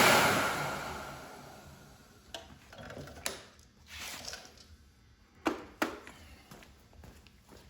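The mower's blower motor winding down, its rushing air fading out over the first two seconds, followed by a few scattered mechanical clicks and knocks.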